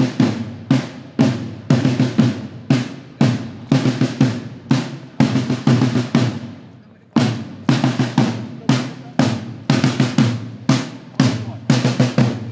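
Parade snare drums beaten in a steady marching rhythm, about two to three strokes a second, with rattling rolls between the beats. The drumming breaks off for about a second around six seconds in, then picks up again.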